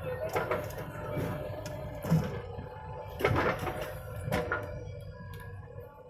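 JCB 3DX backhoe loader's diesel engine running as the arm swings and the bucket digs into earth, with a steady low rumble and about five sharp knocks and thuds from the bucket and soil.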